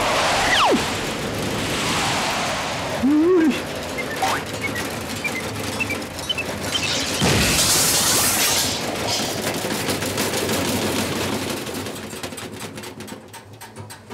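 A run of crashes and bangs in a slapstick scuffle. There is a short rising-and-falling whistle about three seconds in, and a heavy hit followed by a loud hissing rush a little past halfway; the noise dies down near the end.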